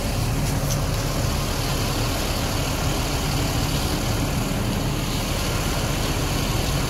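Vehicle engine idling steadily, a continuous low hum.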